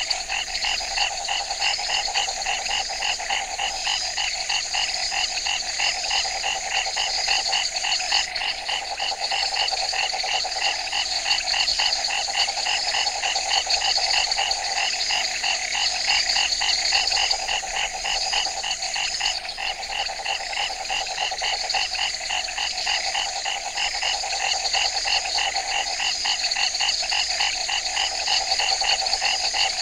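Night forest ambience: a dense, continuous chorus of frogs calling, with fast, evenly repeating pulsed calls over a steady high-pitched drone. The chorus stays constant, with no single event standing out.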